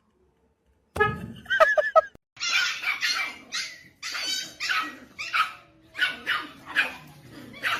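A dog barking repeatedly, about twice a second. It starts about a second in with a few high, whiny yips.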